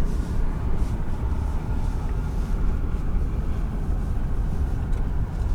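Vehicle driving noise heard from inside a truck: a steady low rumble of engine and tyres on the road.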